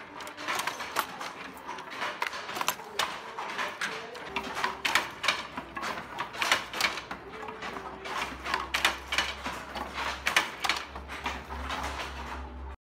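Foot-operated weaving looms clattering: a busy, irregular run of sharp wooden clacks, several a second, as the shuttles are driven through the threads and beaten in. The sound cuts off suddenly at the end.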